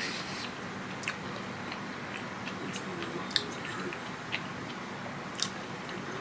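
Close-miked chewing of fried food, with a few sharp mouth clicks and smacks, the loudest about a second in, at about three and a half seconds and near five and a half.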